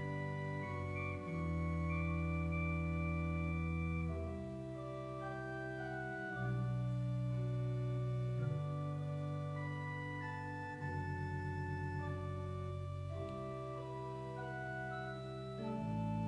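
Organ playing slow, sustained chords that change every couple of seconds.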